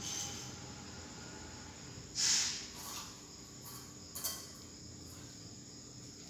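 A steady faint high-pitched chirring in the background, with short bursts of hissing noise: the loudest lasts about half a second around two seconds in, and a brief sharp one comes about four seconds in.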